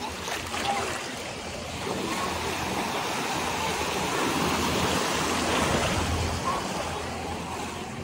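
Small bay waves breaking and washing up a sandy shore in the shallows: a steady rush of surf that grows louder toward the middle and eases off near the end.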